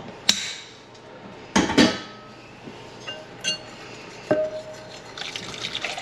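Kitchen clatter: a few knocks and small glass clinks, with the loudest knocks in the first two seconds and a single ringing clink a little past four seconds in. Near the end, boiling water is poured from a glass measuring cup into a glass bowl of cocoa and oil, with a wire whisk clicking quickly against the bowl.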